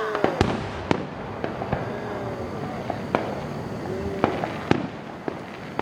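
Fireworks display going off: about six sharp bangs at irregular intervals, a second or so apart, over a continuous background rumble.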